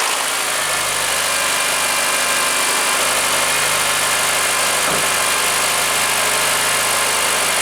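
Honda Accord's K24A 2.4-litre four-cylinder engine idling steadily just after a cold start. The owner suspects a connecting rod has begun to knock.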